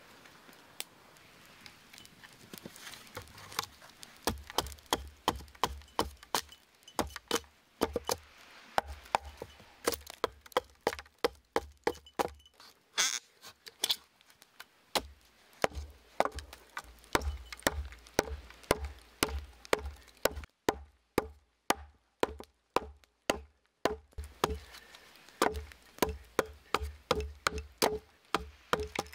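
Small hatchet chopping into a stick of wood held on a wooden plank, splitting it into kindling. The knocks start about four seconds in and come in runs of two or three a second, with a short pause a little past the middle.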